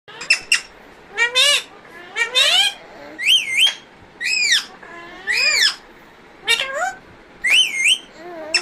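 Pet parrot giving a run of short whistled calls, about one a second, each sliding up and down in pitch.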